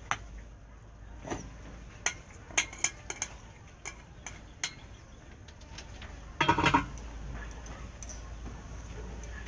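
Utensils clinking and tapping against dishes, a series of sharp separate clicks, with a short louder burst about six and a half seconds in.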